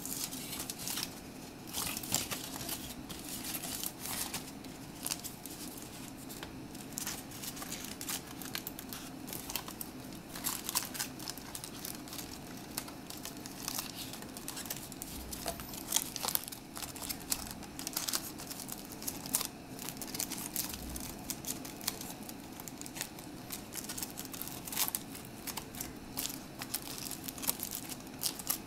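Thin foil wrapper crinkling and crackling in irregular bursts as gloved hands fold and press it around a chocolate egg.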